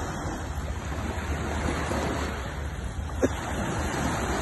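Surf washing onto the beach, with a steady low rumble of wind on the microphone. One short, sharp click a little over three seconds in.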